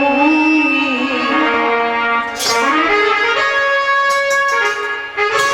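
Instrumental Indian devotional music: a sustained melody line over percussion, with a few sharp drum strikes, about two and a half seconds in and again near the end.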